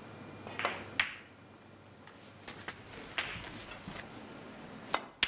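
Sharp, separate clicks of snooker balls: the cue tip striking the cue ball and balls knocking together, several times over a few seconds.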